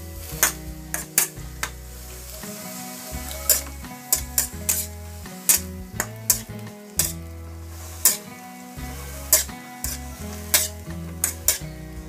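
Metal spatula scraping and clanking against a metal wok as ground pork is stir-fried, with the meat sizzling underneath. The sharp scrapes come irregularly, about one or two a second.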